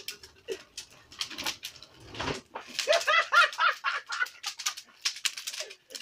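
Wood fire crackling and popping under a stack of wooden beehive boxes being charred, with sharp snaps throughout. About three seconds in, a louder run of pitched, voice-like calls sounds over it for a second or so.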